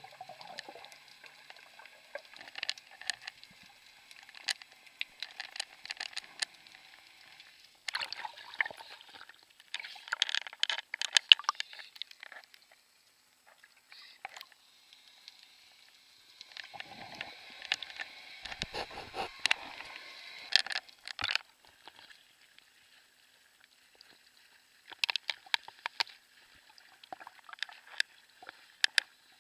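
Water sloshing and bubbling around a camera held underwater beside a snorkeler: spells of crackling, fizzing bubble noise and splashes come and go, with quiet stretches between.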